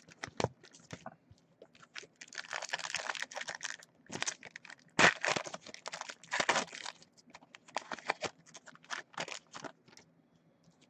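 Trading card pack wrappers being torn open by hand and crinkled, in irregular bursts of crackling with sharp snaps, tailing off near the end.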